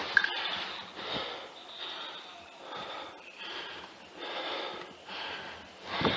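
Heavy breathing close to the microphone, soft noisy breaths roughly once a second, with one louder, sharper burst right at the end.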